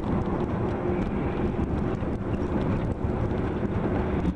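Steady car engine and road noise heard from inside a moving car, a low rumble with a faint even hum.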